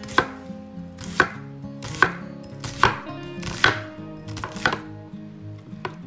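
Kitchen knife chopping an onion on a wooden cutting board, with sharp chops about once a second and two in quick succession past the middle.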